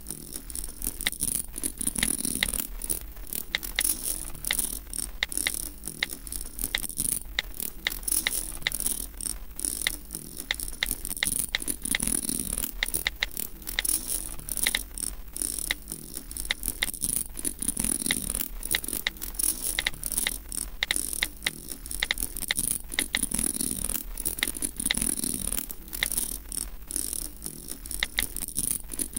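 Experimental animation soundtrack of dense, rapid, irregular clicks and rattles, like small mechanisms ticking. Under them a low hum swells and fades about every five or six seconds.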